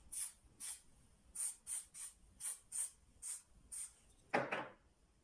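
Got2b Glued aerosol hair spray sprayed in a quick series of about nine short hissing bursts, then one louder, fuller burst a little over four seconds in.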